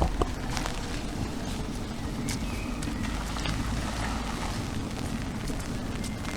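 Steady rain falling, with scattered sharp drop ticks over a low rumble.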